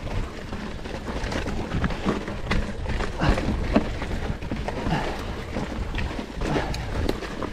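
Mountain bike ridden over a rocky, rooty dirt trail: irregular knocks, clicks and rattles as the tyres and frame hit stones, over a steady low rumble.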